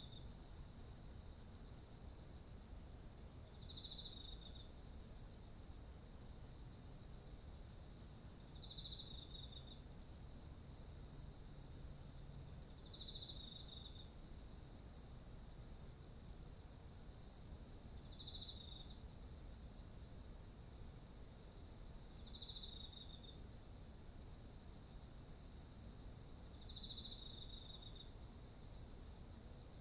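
Chorus of autumn insects singing: a steady, high, unbroken trill, a lower pulsing trill that breaks off briefly every few seconds, and a short chirp repeated about every four to five seconds.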